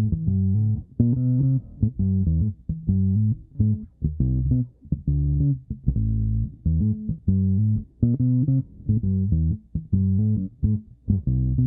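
Nordstrand Acinonyx short-scale electric bass played with its neck single-coil pickup soloed on the third of its four tone settings: a riff of plucked notes in a steady rhythm.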